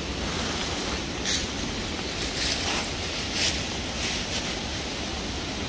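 A stick scraping and poking inside a hollow at the base of a tree: a string of short, scratchy rustles over a steady hiss.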